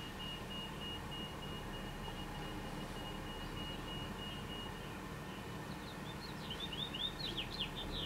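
Male house finch singing a quick run of sharp, falling chirpy notes in the last two or three seconds, growing louder toward the end. Before the song, a faint steady high tone holds for about five seconds.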